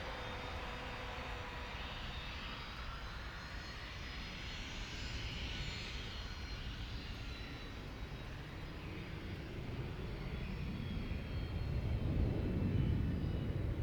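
Bombardier Global 5000 business jet's twin turbofan engines running, with a high engine whine over a steady rumble. The rumble grows louder near the end.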